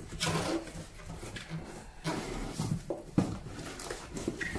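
Paper and cardboard rustling and being handled in short irregular bursts as a booklet's pages are leafed through.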